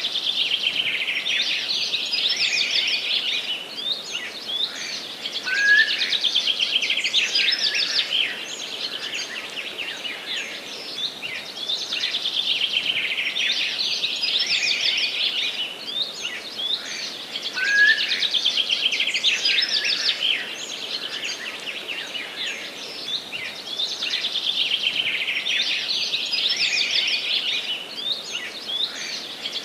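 Several songbirds singing together in a forest chorus, with dense overlapping trills and chirps over a steady background hiss. The same passage of song comes round again about every twelve seconds, each time with a short rising note.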